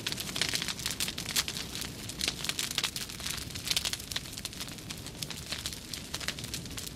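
A mass of burning matchsticks crackling: a dense, irregular stream of small pops and snaps.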